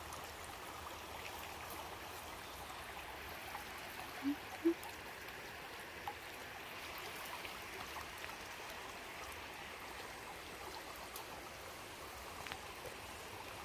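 Shallow creek water flowing and trickling steadily over stones and roots, with two brief faint blips about four and a half seconds in.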